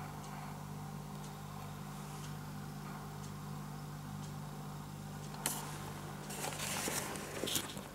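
A steady low hum, then about five and a half seconds in a run of close rustling and light clicks lasting about two seconds.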